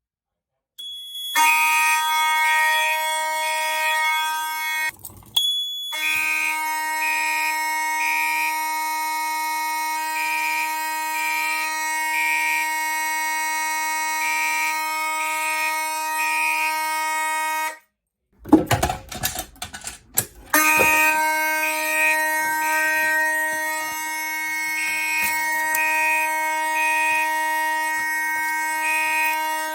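Fire alarm horns sounding in walk test: a continuous horn tone with a Gentex Commander 3 mechanical horn pulsing over it in groups of three, its own temporal code 3. The sound cuts out briefly about five seconds in, then again for a couple of seconds past the middle, where clicks and knocks are heard, and resumes.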